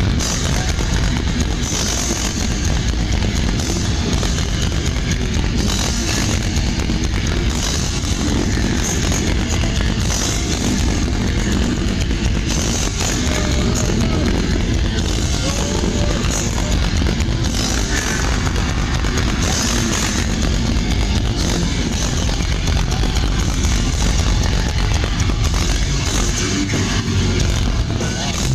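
Death metal band playing live at full volume: distorted guitars, bass and drums in a dense, steady wall of sound.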